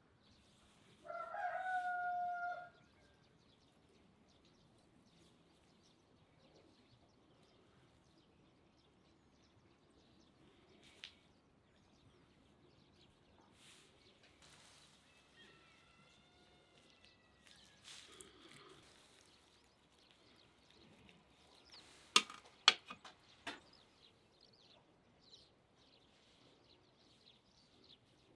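A rooster crows once, about a second in: one loud held call lasting about a second and a half. Later come faint bird chirps, and near the end a quick cluster of sharp clicks.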